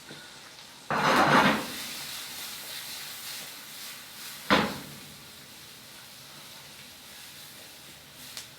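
Cooking sounds at the stove. A short clattering rush about a second in gives way to a faint pan sizzle that fades. A single sharp knock of a pan or utensil comes a little past the middle.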